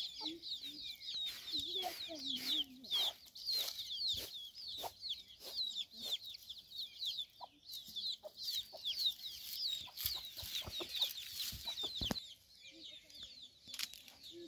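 Chicks peeping rapidly and continually, with a hen clucking low near the start and again about two seconds in. Dry leaves crunch underfoot throughout. The peeping thins out near the end.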